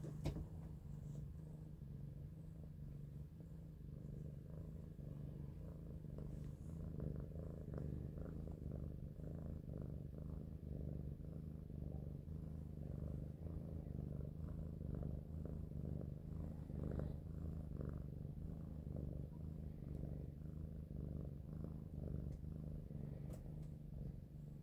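Domestic cat purring steadily, close to the microphone. A single sharp click sounds right at the start.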